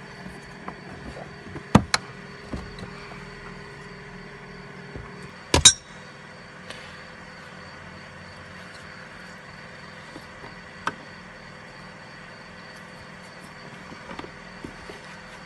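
A few sharp knocks or clunks, two close together about two seconds in and the loudest about five and a half seconds in, over a steady low hum that stops at that loudest knock.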